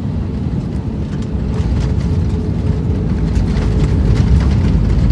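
Cabin noise of an Airbus A320 landing: loud, steady rumble of the wheels rolling on the runway. It grows louder about a second and a half in, with rattling in the cabin, as the ground spoilers go up for the landing rollout.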